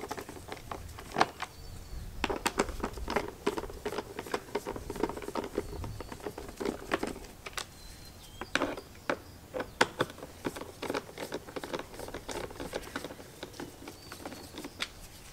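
A 5.5 mm nut driver and small screws clicking and scraping on the hard plastic heater core cover of a truck's heater box as the screws are backed out: irregular small clicks and taps throughout.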